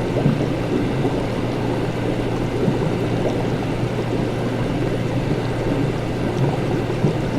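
Laboratory ambience: a steady low hum under a dense, even noise, with a few faint high ticks.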